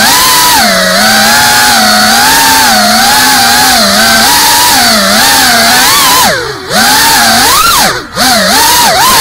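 GEPRC Cinelog35 Performance 3.5-inch FPV drone's motors and propellers whining, heard from its onboard camera, the pitch wavering up and down with the throttle. Near the end the sound drops away briefly twice as the throttle is cut and picked back up.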